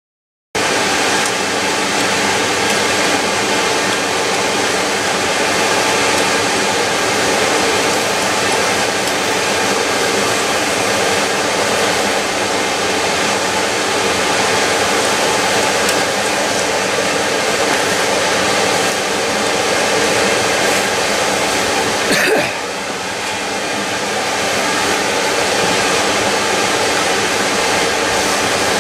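Homemade aluminum-melting forge running hot: a loud, steady rush of fire and air with a steady hum under it. About three-quarters of the way through comes one short sharp sound, after which the rush runs a little quieter.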